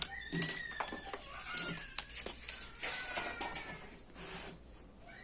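Cardboard packaging of a power tool being handled: scattered knocks and clicks with several short high squeaks as the box is rubbed and moved.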